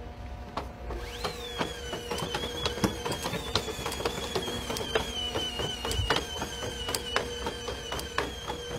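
A four-legged Boston Dynamics walking robot on the move: a steady high whine from its drive starts about a second in, with irregular clicks and taps from its feet and joints.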